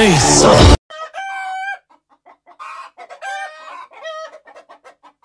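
A loud stretch of voice and music cuts off suddenly under a second in. Roosters then crow several times, one call after another, each a held note that lifts at the end.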